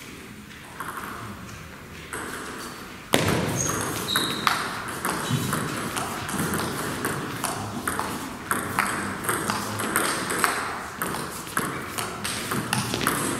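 Table tennis rally: the celluloid ball clicks off the bats and bounces on the table in quick succession, starting about three seconds in after a quieter moment before the serve.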